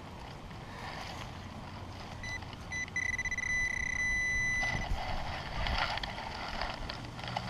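Handheld metal-detecting pinpointer giving two short beeps, then a steady high-pitched tone for about two seconds as it locates a target in the hole, over wind on the microphone. After the tone stops, rough scraping and rustling of hands and tools working in soil.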